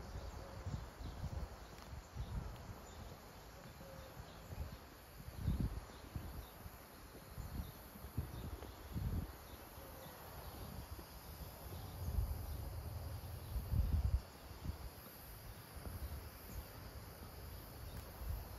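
Steady, faint, high-pitched chirring of insects, with irregular low rumbles and thumps, the loudest of them about five seconds in and again from about twelve to fourteen seconds.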